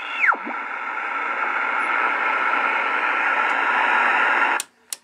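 Realistic SX-190 shortwave receiver's audio: a whistling beat tone sweeps quickly down in pitch as the tuning dial is turned, then gives way to a steady hiss of band static. Near the end the static cuts off suddenly, with two sharp clicks as the band switch is turned.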